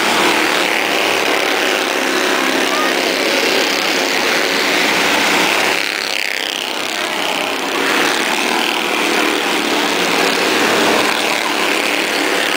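A pack of Bandolero race cars' small engines buzzing at racing speed as they circle the track. Two cars pass close about six seconds in, their pitch dropping as they go by.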